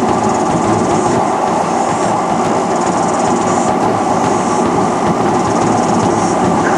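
Top-loading washing machine running badly unbalanced with sealed lead-acid batteries in its drum, making a loud, continuous clattering and knocking as it destroys itself.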